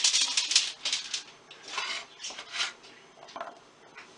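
Chopped potatoes being tipped and spread onto a baking sheet: clattering and scraping, dense for about the first second, then in several shorter bursts.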